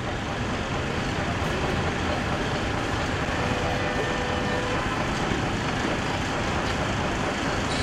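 Steady street traffic noise: the continuous rumble and hiss of passing vehicles, with a faint brief tone about halfway through.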